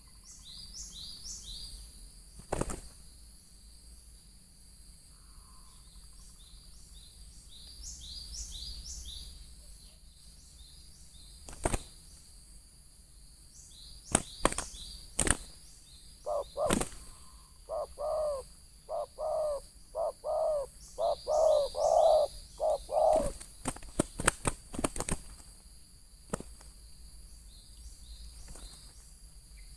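Spotted dove cooing, a run of about ten low notes starting about halfway through. Small birds give short high falling chirps throughout, with a few sharp clicks scattered in.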